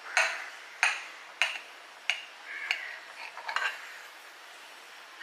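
Kitchen utensils clinking and knocking against dishware: about six sharp knocks in the first four seconds, then quieter.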